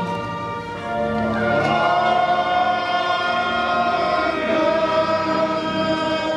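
Men's voices singing a hymn together in slow, sustained notes, holding each long tone before moving to the next.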